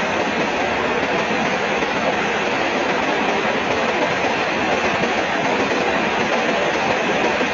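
Steady, dense rainfall without thunder, an even hiss of many drops at a constant level.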